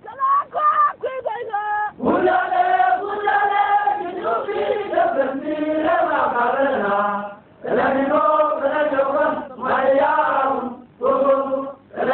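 Voices chanting in a sung style: phrases with long held notes, broken by short pauses about 2, 7.5 and 11 seconds in.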